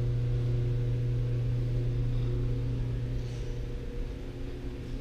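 Steady low mechanical hum with a few fainter, higher steady tones above it, easing slightly about three and a half seconds in.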